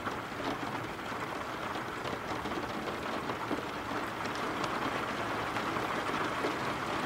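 Steady rain falling: an even hiss with a few distinct drops ticking through it.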